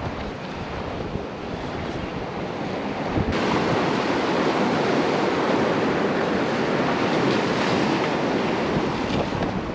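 Strong gale-force wind buffeting the microphone over surf washing on the shore, a steady rushing noise that grows suddenly louder about three seconds in.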